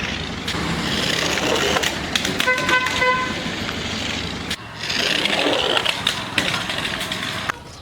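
Vehicle noise, a steady hiss with scattered clicks, with a quick run of about four short horn toots about two and a half seconds in.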